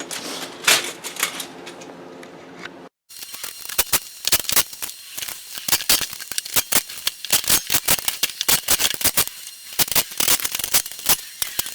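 A wrench tightening the carriage bolts of a steel leg stand: quick, irregular runs of sharp metallic clicks that begin about three seconds in, after a brief silence, and keep going.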